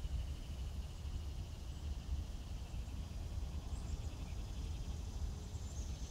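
Backyard summer ambience: a steady low rumble under a rapid, pulsing insect trill that fades out after the first couple of seconds, with a few faint high bird chirps in the second half.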